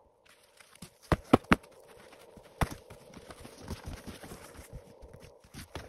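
Boots crunching and stamping in snow while camping gear is handled: three sharp knocks in quick succession about a second in, another a little later, then a run of small crunches and rustles.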